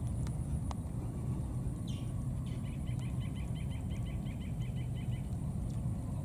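Outdoor ambience: a low steady rumble with a thin high steady whine over it. About two and a half seconds in, a bird gives a rapid trill of about fifteen short even notes lasting a second and a half, just after a brief sweeping note.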